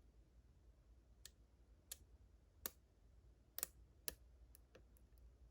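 Faint, unevenly spaced clicks of lock picking tools working the pin stacks of a Ruko 600 lock fitted with gin pins, about five clear clicks with a few softer ones near the end.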